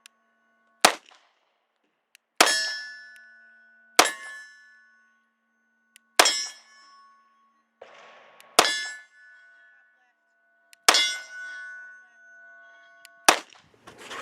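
CZ P-07 9mm pistol fired single shots at an unhurried pace, seven shots about two seconds apart. Each shot is followed by a ringing that dies away over a second or two.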